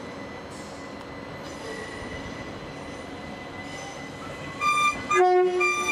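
Class 387 electric multiple unit moving slowly along the platform with a steady rumble and a faint high whine. Near the end it sounds a short two-tone horn toot, a high note and then a low one.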